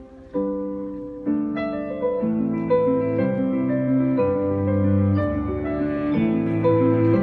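Live performance of a grand piano with a small string ensemble: at first slow single piano chords that ring and fade, then the music grows fuller and louder about a second and a half in, with held lower notes coming in beneath the piano.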